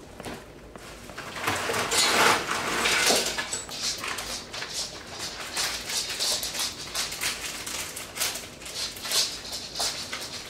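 Welsh corgi puppy moving about on fleece blankets: soft rustling and scratching of paws and fabric, with a louder stretch of rustling about two seconds in.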